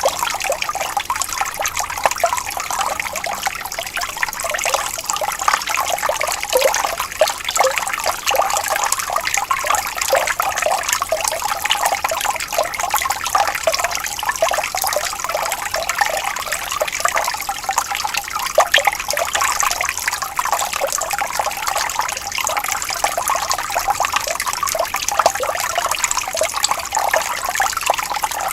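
Shallow water flowing and trickling steadily, with many small splashes and gurgles.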